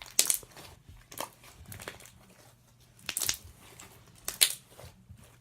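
Slime being squished and worked by hand, giving short sticky crackling pops, about five of them spread out, the loudest just after the start and about four seconds in.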